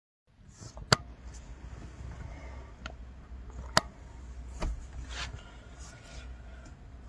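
Handling noise of a phone held in a car: two loud sharp clicks about three seconds apart and a few fainter taps, over a low steady rumble.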